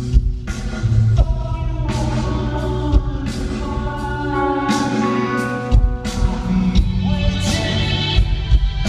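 Rock band playing a song with singing during a sound check, with drum hits throughout.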